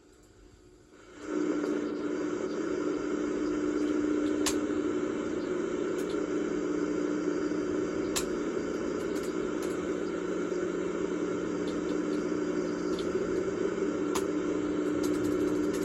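Steady buzzing hum with hiss, the strange sound on a VHS tape's audio before the programme starts. It comes in abruptly about a second in and holds steady, with a few faint clicks.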